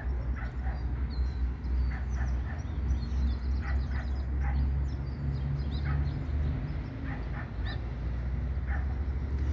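Outdoor background: a steady low rumble with many short, scattered animal calls, chirp-like and high-pitched, coming and going.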